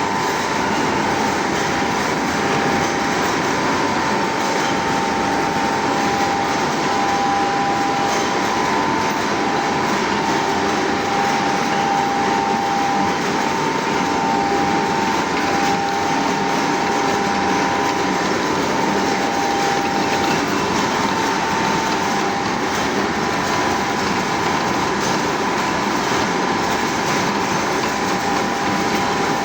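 Lathe machine running steadily with a constant whine over a broad mechanical rumble.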